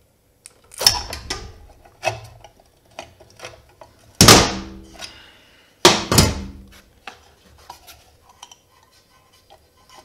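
Sharp metallic knocks and clanks on a Honda mower engine as its sealed valve cover is worked loose, the two loudest about four and six seconds in ringing briefly, with lighter clicks and taps between.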